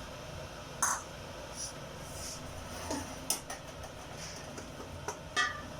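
Chopped onion frying in oil in a pan, with a spoon or spatula knocking against the pan a few times as it is stirred; the last knock, near the end, rings briefly.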